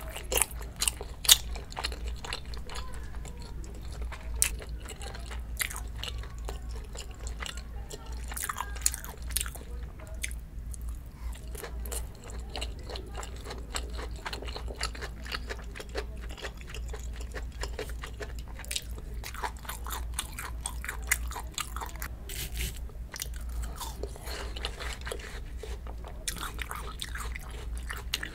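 A person chewing and biting food close to the microphone, with many sharp mouth clicks and occasional crunches.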